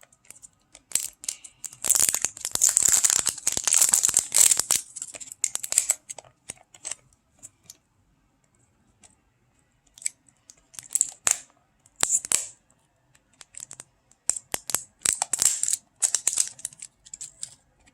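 Toy box packaging being torn open by hand: a long tearing rip about two seconds in, then scattered crinkles, rustles and clicks of the packaging being handled.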